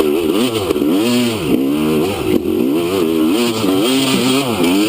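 Dirt bike engine revving hard, its pitch rising and falling about once or twice a second as the throttle is worked on and off.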